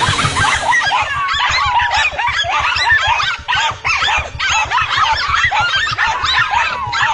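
Dogs fighting a mongoose: a rapid, unbroken stream of high-pitched yips and squeals, many overlapping.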